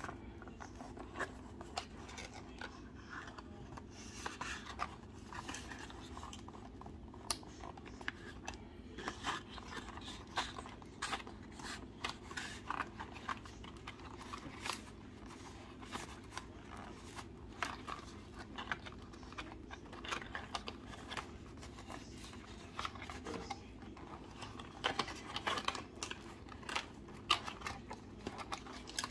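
Cardboard toy box being pulled open by hand: flaps and the inner insert scraping and rustling, with many small clicks and taps, busier near the end.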